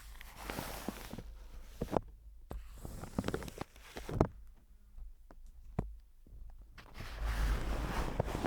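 Close-miked ASMR trigger sounds: soft rustling with a series of sharp taps and clicks, growing into denser scratchy rustling near the end.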